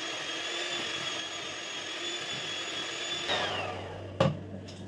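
Bajaj Majesty HM01 electric hand mixer running steadily with a whine as its beaters cream chilled butter. It is switched off a little over three seconds in, the whine falling as the motor winds down, followed by a sharp knock near the end.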